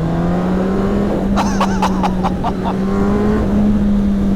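2006 Yamaha R1's inline-four engine running under light throttle on stock exhaust, its pitch rising slowly and then holding steady. A short run of sharp, higher sounds cuts in briefly about a second and a half in.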